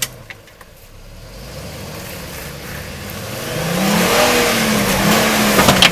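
Off-road 4x4's engine revving up under load as it crawls over rocks, building from about two seconds in and wavering in pitch near its peak. A sharp knock at the start and another near the end.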